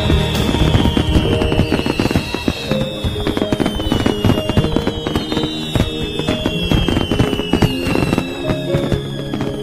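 Fireworks crackling and banging densely over background music, with several high whistles that each fall slowly in pitch.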